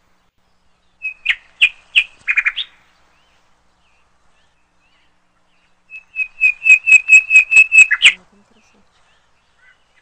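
A songbird singing two short phrases of rapid, repeated chirping notes: one about a second in, and a longer, quickening run of notes from about six to eight seconds.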